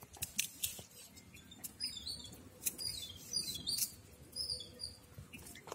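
Small birds chirping, a run of quick high chirps through the middle, with a few light clicks in the first couple of seconds.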